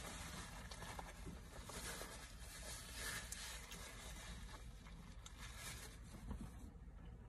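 Faint chewing and mouth sounds of a person eating a bacon burger, with light rustling and small crackles.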